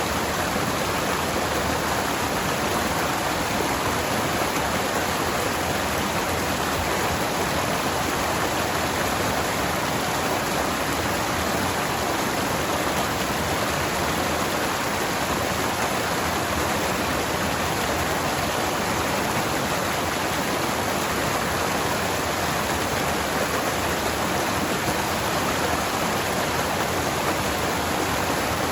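Forest stream flowing steadily over rocks, a continuous rushing of water.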